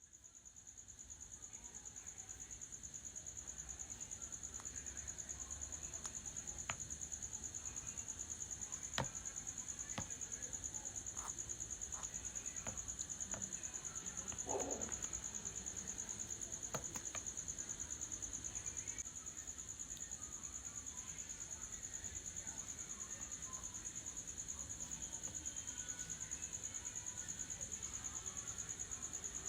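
An insect trilling steadily at a high pitch, with a few faint clicks and a brief louder sound about halfway through.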